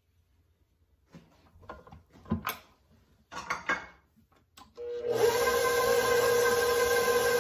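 A few knocks and rustles around the mixer bowl, then about five seconds in a stand mixer's motor starts and runs with a steady whine, its flat beater churning thick cookie dough.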